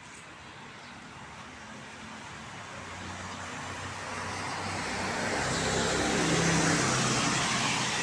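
A car approaching and passing by on a wet road. Engine hum and tyre hiss grow louder, peak about six and a half seconds in, then fade.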